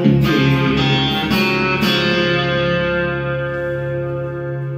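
Acoustic and electric guitars playing the end of a song: a few last strums in the first two seconds, then the final chord left ringing and slowly dying away.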